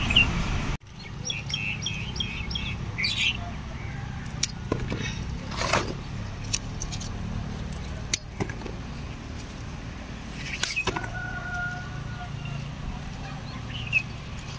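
Scissors snipping eggplant stems, a few sharp clicks, over a steady hum of distant traffic with birds chirping in short runs. A brief steady tone sounds about eleven seconds in.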